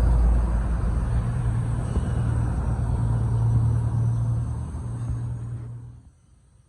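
An engine running with a steady low rumble, dying away about six seconds in.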